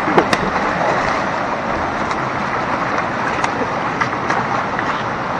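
Steady wind rush over the microphone of a mountain bike in motion, with a few sharp clicks and rattles, the first pair just after it starts and a few more around the middle.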